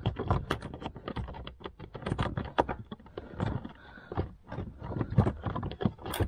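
Irregular light clicks and taps of fingers working a small screw by hand into the cabin air filter cover among plastic trim, the screw being awkward to reach and thread.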